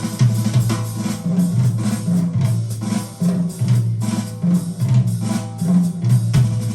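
Swing music played back through Tannoy Platinum B6 speakers, here a drum-kit passage with bass drum and snare over a stepping bass line, the brass dropping out until just after it.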